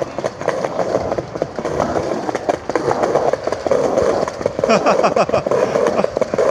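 Skateboard wheels rolling downhill over paving: a steady rolling rumble, broken by frequent sharp clicks as the wheels cross the joints between slabs.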